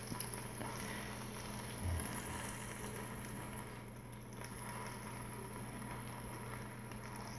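Faint, steady sizzling of a hot ribeye steak just air-crisped at 400 degrees in a Ninja Foodi basket, over a low steady hum.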